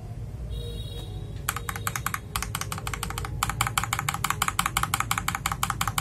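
Keys of an FL Esports MK870 mechanical keyboard with matcha keycaps typed rapidly, a dense run of clicks starting about a second and a half in, with a couple of brief pauses.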